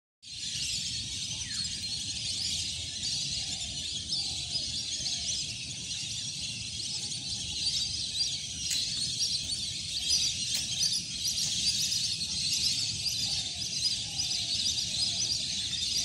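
Dense, high-pitched chatter of a large flock of birds on the water, steady throughout, with a few fainter lower calls now and then.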